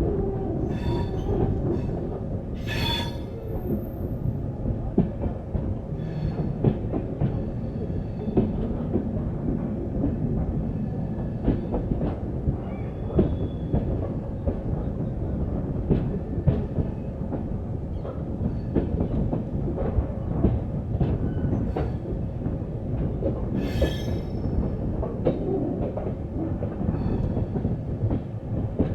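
Passenger train wheels running over points and crossovers: a steady rumble with many short clacks. Shrill wheel-flange screeches come twice in the first few seconds and again about three-quarters of the way through, as the coaches snake through the curves of the turnouts.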